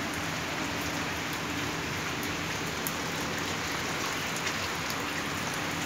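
Heavy rain falling steadily on garden plants and wet paving: an even hiss with scattered sharper drop hits.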